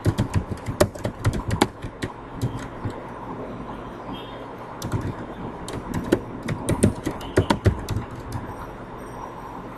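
Computer keyboard typing: irregular runs of sharp key clicks, busiest in the first two seconds and again from about five to eight seconds in, over a faint steady hum.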